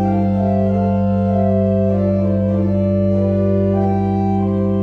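Organ playing slow sustained chords over a held low bass note, the upper notes changing slowly.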